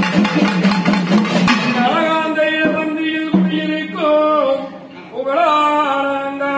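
Pambai and udukkai drums beating fast under a man's voice singing a drawn-out amman azhaippu, the folk invocation that calls the goddess. Dense drum strokes fill the first second and a half; after that the voice holds long notes that bend and slide at their ends.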